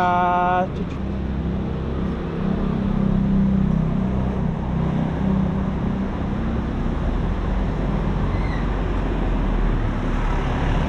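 Steady street traffic noise with a low motor rumble, strongest in the first half. A steady pitched tone cuts off under a second in.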